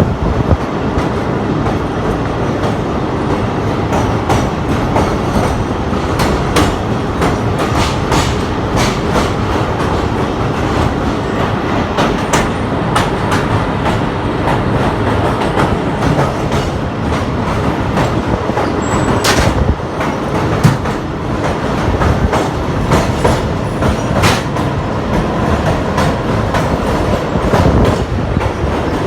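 Passenger train wheels running fast over the rails while crossing the River Ravi bridge: a steady loud rumble with repeated sharp clickety-clack strikes at the rail joints, one especially sharp clack a little past the middle.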